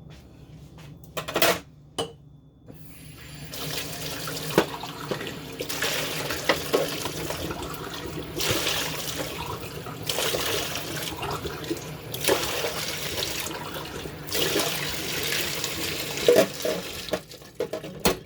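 Two short knocks, then water running from a tap into a sink, the splashing rising and falling for about fourteen seconds before it stops.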